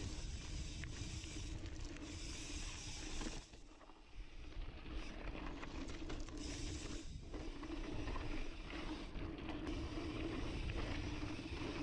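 Onboard riding noise of a mountain bike on a dry, dusty forest singletrack: tyres rolling over loose dirt and the bike rattling, with a steady hum. The sound dips briefly about three and a half seconds in.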